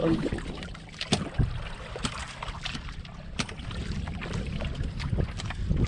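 Wind rumbling on the microphone aboard a small outrigger fishing boat at sea, with a few sharp knocks and clicks as the longline and hook are handled over the hull.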